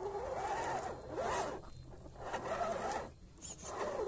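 Scale RC crawler's electric motor and gear train whining in about four throttle bursts, the pitch rising and falling with each as the truck crawls over mud and rock.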